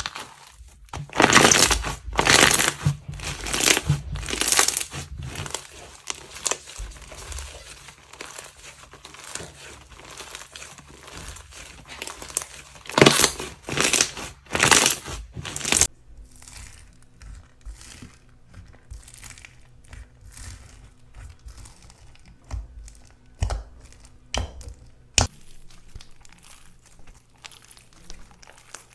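Crunchy slime being squished, giving crackling crunches. The loudest bunches come in the first few seconds and again just before halfway; after a sudden change a little past halfway the crackling goes on more quietly.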